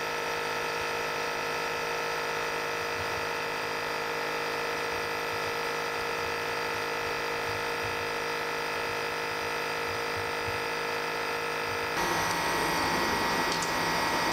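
Nebulizer running with a steady electric hum, misting saline for inhalation to hydrate the vocal cords. About twelve seconds in the sound gets louder and noisier.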